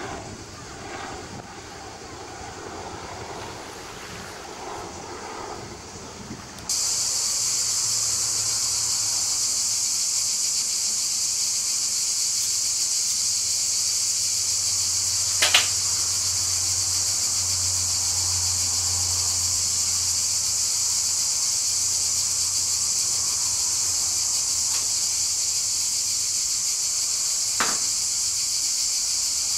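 Cicadas in a steady shrill chorus that cuts in sharply about seven seconds in, over a faint low drone of a distant aircraft engine. Before that, a fainter aircraft rumble; two sharp clicks stand out midway and near the end.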